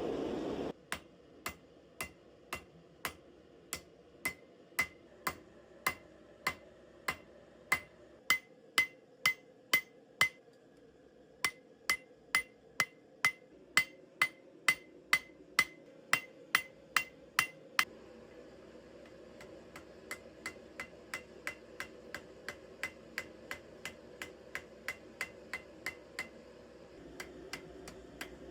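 Hand hammer forging a 1084 high-carbon steel knife blade on an anvil. Steady blows come about two a second, each with a short metallic ring, with a brief pause about ten seconds in. After a break of about a second and a half, lighter and quicker blows follow at about three a second.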